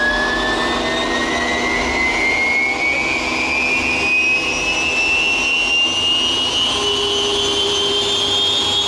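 Lycoming T53 turboshaft engine starting and spooling up: a loud turbine whine rising steadily in pitch. A second, lower steady tone joins about seven seconds in.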